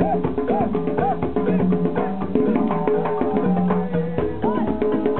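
Live African group music: drums and clicking percussion keeping a fast, busy beat, with repeated rising-and-falling melodic phrases and held notes over it.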